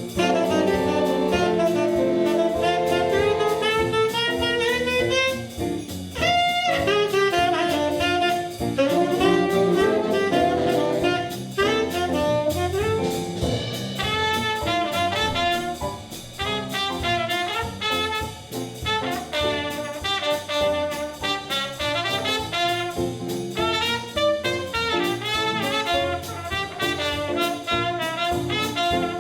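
A jazz band playing, with saxophones and brass carrying the melody over a drum kit.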